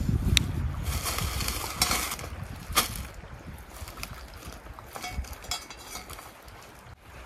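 Bags being handled on a tent groundsheet: rustling as a woven bag is set down and a sack is taken out of it, with three sharp clicks in the first three seconds. Wind rumbles on the microphone near the start.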